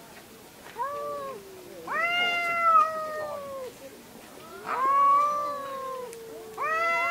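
Two cats yowling at each other in a territorial standoff: a short call about a second in, then three long, drawn-out, wavering howls one after another, each lasting a second or more.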